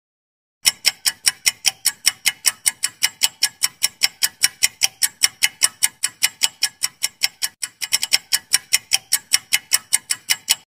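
Countdown-timer clock ticking sound effect: fast, even ticks, about five a second, with a brief hitch in the rhythm about eight seconds in, stopping suddenly.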